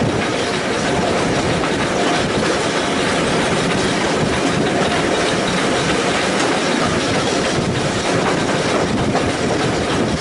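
Train running on rails: a steady rumble and clatter of carriage wheels over the track.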